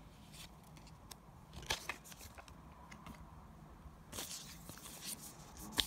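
Pokémon trading cards being handled: faint scattered rustles and clicks, with a longer rustle about four seconds in and a sharper click near the end.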